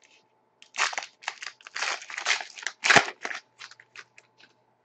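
Foil wrapper of a hockey card pack being torn open and crinkled by hand: a run of short crackles and rustles, the loudest a sharp crackle about three seconds in.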